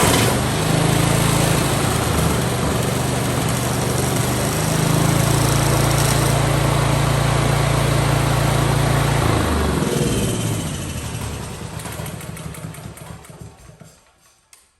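Honda GX390 single-cylinder generator engine running steadily, with its oil pressure switch disconnected: it runs this way because that switch was the fault keeping it from starting. A little under halfway it gets louder, and about two-thirds through it winds down and dies away over several seconds.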